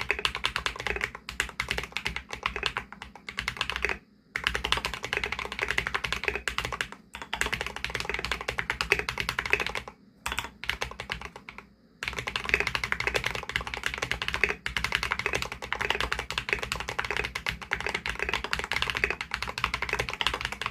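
Fast, continuous typing on a mechanical keyboard with mStone Groove T Coral V2 tactile switches: a rapid run of keystroke clacks, broken by short pauses about four seconds in and again around ten to twelve seconds in.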